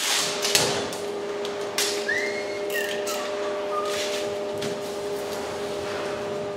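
Masking tape being pulled from the roll and paper rustling as a car body panel is masked off for paint, with a few short scrapes and a brief squeak about two seconds in, over a steady hum.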